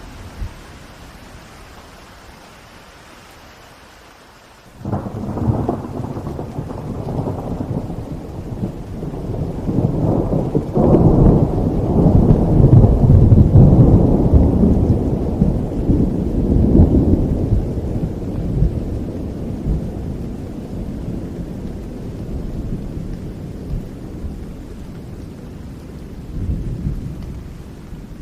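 Steady rain, then a sudden clap of thunder about five seconds in that rolls into a long, deep rumble, swelling for several seconds before slowly fading under the rain.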